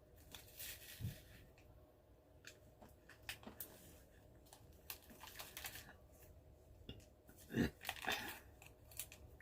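Faint crinkling and crackling of a plastic snack wrapper being torn open and handled, with scattered small crunches. A louder knock comes about three-quarters of the way through.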